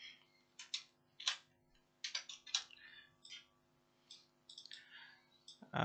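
Computer keyboard keystrokes clicking in short, irregular runs as a line of code is typed.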